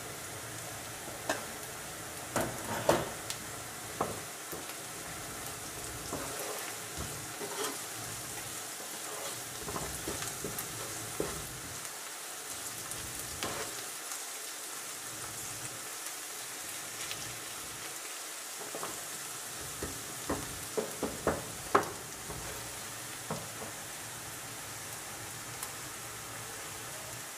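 Carrots and onions sizzling in oil in a frying pan, with a steady hiss throughout. A spoon stirs and scrapes through the vegetables, knocking sharply against the pan a few times about two to four seconds in and again about twenty seconds in.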